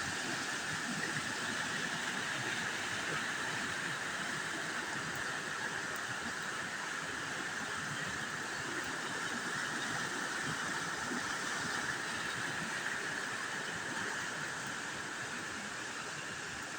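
Water pouring over a man-made waterfall on a creek: a steady, even rush.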